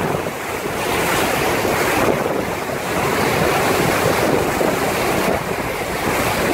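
Wind buffeting the microphone over the steady wash of sea waves, rising and falling in strength.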